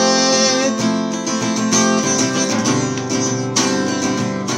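Solo song: a singer holds the last word of a line, "away", which ends under a second in. The instrumental accompaniment then plays on alone, with a new chord coming in near the end.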